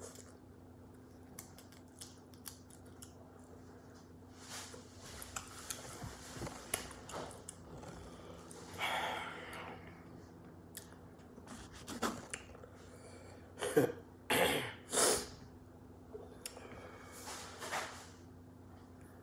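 Close-up eating of a seafood boil by hand: small clicks and cracks of shellfish being picked apart, with chewing and mouth sounds. About two-thirds of the way through come three short, louder throaty bursts.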